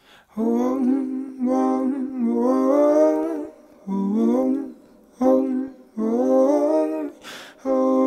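A voice humming a slow wordless melody in short phrases as the opening of a song, with a quick breath in about seven seconds in.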